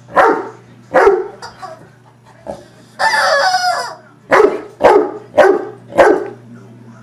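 A dog barking in loud single barks, two near the start and four close together in the second half. Between them, about three seconds in, a squeezed rubber chicken toy lets out one squawk lasting about a second.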